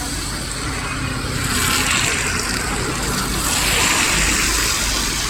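Road traffic passing on a rain-wet road: the hiss of tyres on water swells as vehicles go by, about two seconds in and again about four seconds in.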